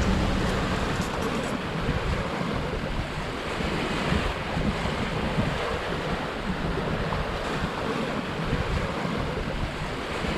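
Water rushing along the hull of a sailboat under way, with wind buffeting the microphone.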